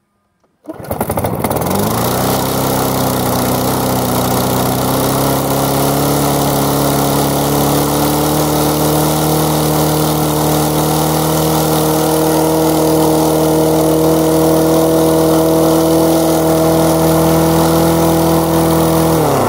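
2007 Snapper self-propelled push mower's small single-cylinder engine catching on a pull-start about a second in, revving up and then running steadily, and winding down as it shuts off at the end. The owner says it was harder than usual to start and takes the engine for half blown.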